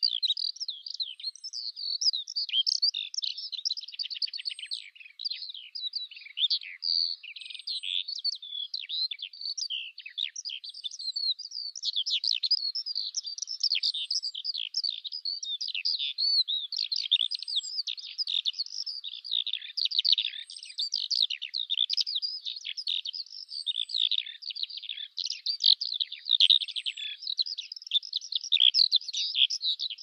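Eurasian skylark (Alauda arvensis) singing: a rapid, unbroken stream of high warbling and trilling notes that runs on without pauses.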